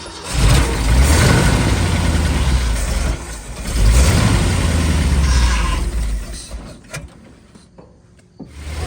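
1975 Ford F250 pickup's engine running to pressurize a newly fitted power steering return line. The engine sound starts just after the opening, dips about three seconds in, rises again, then dies away about six seconds in.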